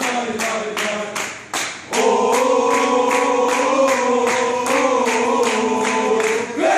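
A group of football supporters singing a chant together in unison, with steady clapping about three times a second. The singing breaks off briefly about a second and a half in, then comes back in long held notes.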